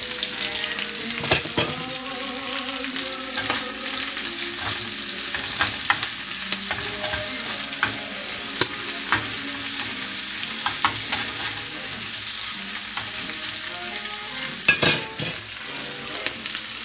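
Chopped chistorra and Polish sausage sizzling in oil in a nonstick frying pan while being stirred with a utensil, with frequent little pops and scrapes over a steady hiss. A couple of sharp knocks stand out near the end.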